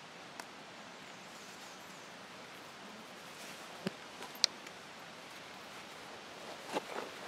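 Hands handling and stitching a leather pouch: soft rustling of the leather with a few small sharp clicks, the sharpest about halfway through, over a steady hiss.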